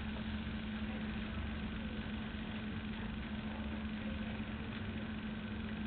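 Steady low hum with an even hiss: machine or electrical room background noise, unchanging throughout.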